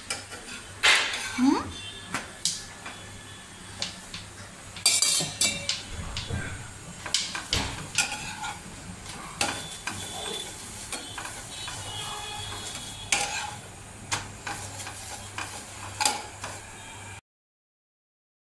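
Kitchen clatter: a rolling pin and metal utensils knocking and clinking while chapathis are rolled and turned on a tava, with a light sizzle. The sound cuts off to silence near the end.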